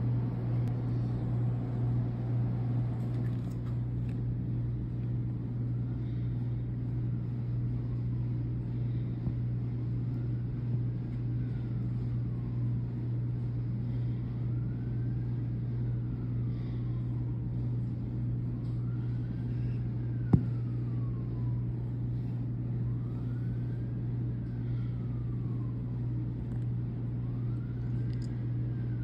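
A steady low hum under a faint siren wailing slowly, each rise and fall lasting about four seconds, from about six seconds in. One sharp click about two-thirds of the way through.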